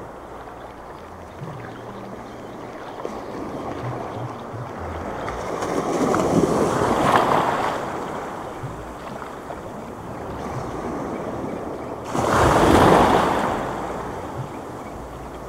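Small surf washing up the beach at the water's edge, a steady wash with two louder surges of breaking waves, about six seconds and about twelve seconds in.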